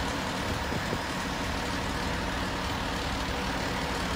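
Fire engine's diesel engine idling steadily, a low, even hum.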